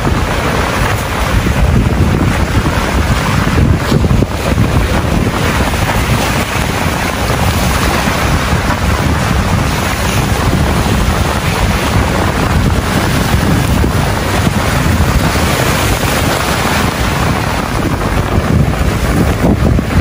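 Strong wind buffeting the microphone, a loud, steady rumble over waves washing and breaking against the rocks.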